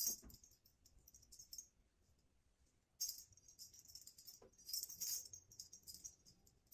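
Light jingling and rustling from a feather wand cat toy being waved and batted, in quick clusters with a pause of about a second near the middle. A soft thump at the start as a kitten lands on the wooden floor.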